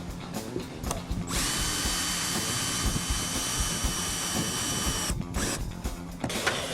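Power drill driving a GRK R4 multi-purpose screw: a steady motor whine for about four seconds that cuts off abruptly, then a brief second short run near the end.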